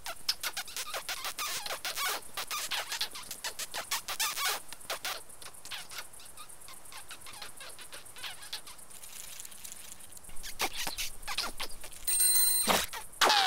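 Cartoon ladybug voice effects: fast squeaky clicking chatter, densest in the first five seconds, fainter in the middle, picking up again after about ten seconds, then a brief steady pitched tone near the end.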